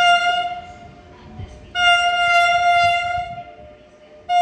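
Train horn sounding one high, steady note in repeated blasts: one blast ends about half a second in, a longer one of nearly two seconds follows, and another starts near the end.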